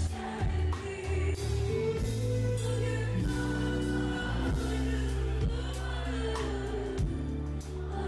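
Live concert music: a female singer singing into a microphone over band accompaniment with a steady deep bass, through a large PA, with long held notes in the middle.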